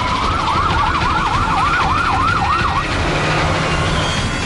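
Police car siren in a fast yelp, sweeping up and down about five times a second over a low rumble, and cutting off about three seconds in.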